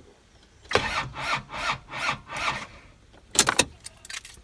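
Odd rhythmic screeching from a 1999 Toyota HiAce diesel before starting: about six or seven squeaky strokes, roughly three a second. A few sharp clicks follow near the end.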